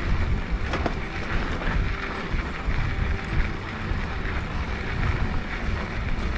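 Mountain bike riding over a dirt singletrack: steady wind buffeting the camera microphone and tyre rumble, with a sharp clack from the bike about a second in.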